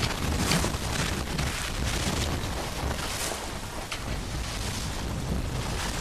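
Wind buffeting the microphone in a steady low rumble, with water rushing and splashing along the hull of a small sailboat under way, a few short splashes breaking through.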